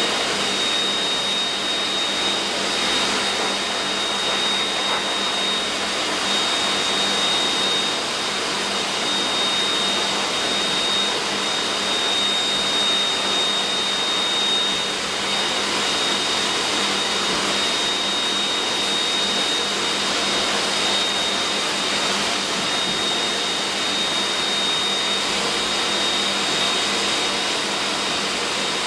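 Handheld dog grooming dryer blowing steadily through a German Shepherd puppy's coat: a constant rush of air with a thin high whine from the motor.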